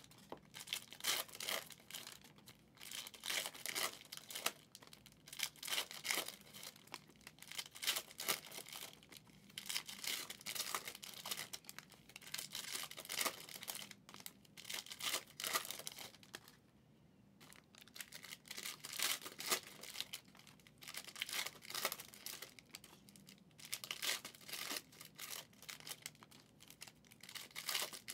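Trading card pack wrappers being torn open and crumpled: an irregular run of crinkling and tearing, with a brief lull about seventeen seconds in.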